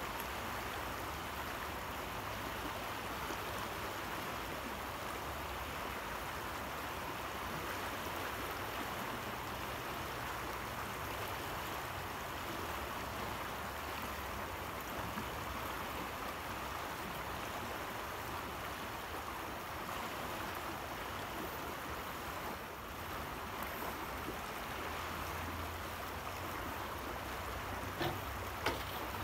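Steady rush of a fast-flowing river, with a few sharp clicks near the end.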